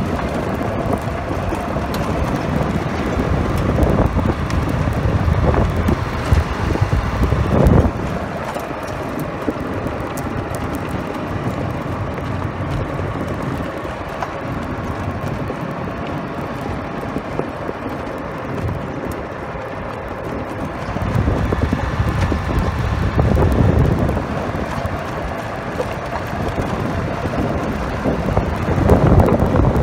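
Golf cart driving along a gravel road: a steady rumble of the cart and its tyres on gravel, with wind buffeting the microphone in gusts at times.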